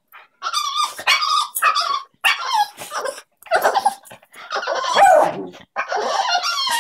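Boston terrier making a quick run of short, high squeaky whines and yips, many sliding up or down in pitch, a chatter that sounds like a dolphin.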